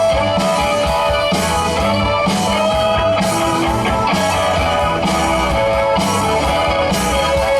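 Live rock band playing an instrumental passage with electric guitar lines over bass and drums.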